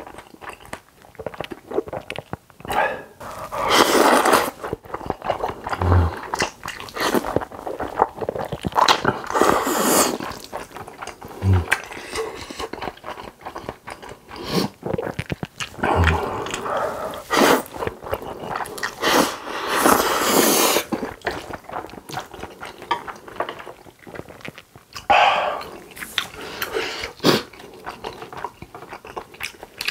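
Close-miked eating: a person slurping spicy carbonara instant noodles in several long slurps, about five in all, with wet chewing and mouth clicks between them.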